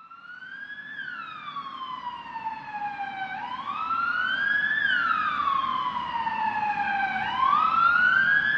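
Emergency-vehicle siren in a slow wail, its pitch rising and falling about every four seconds over a faint low rumble. It fades in from silence, grows louder, and cuts off abruptly.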